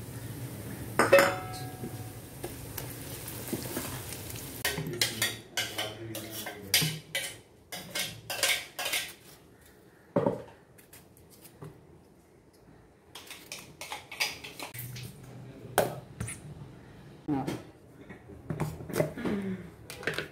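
Kitchen clatter: clinks and knocks of steel utensils, pans and a stainless-steel mixer jar, coming in two runs of quick strikes with a quieter gap between them.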